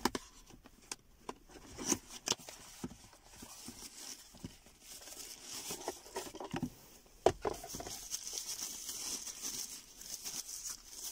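Small cardboard box being handled and opened with light taps and scrapes, then a clear plastic bag crinkling steadily as a small device is unwrapped from it. A single sharp click about seven seconds in is the loudest sound.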